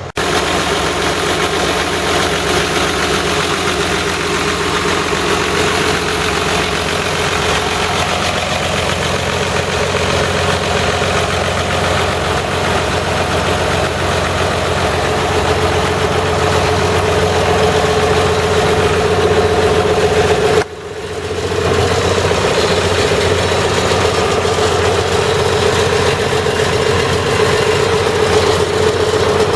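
Mitsubishi MS180LC-3 excavator's diesel engine running steadily. The sound breaks off abruptly about twenty seconds in and picks up again right away.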